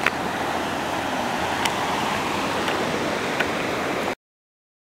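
Ocean surf washing steadily on a beach, with a few faint clicks. It cuts off suddenly about four seconds in.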